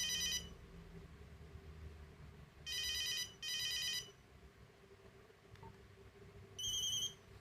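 Nokia 8250 playing a monophonic ringtone through its small speaker: short, buzzy trilling ring bursts in pairs, one pair at the start and another about three seconds in, then a single burst at a different pitch near the end.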